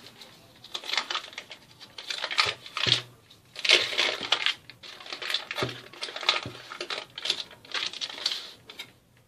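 Paper and card wrapping of a block of puff-pastry margarine being opened and unfolded by hand: irregular rustling and crinkling, with a few soft knocks of the block against the counter.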